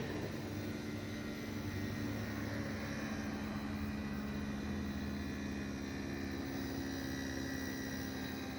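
Mitsubishi MJ-EV250HM dehumidifier running in low fan mode, its inverter compressor giving a steady hum made of several held low tones with a fainter high whine above. This is the resonance and abnormal noise that the owner attributes to the compressor after the switch to weak fan mode.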